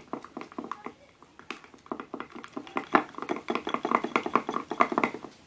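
A spoon stirring and scraping thickening slime in a container: a fast run of clicks and taps, louder in the second half.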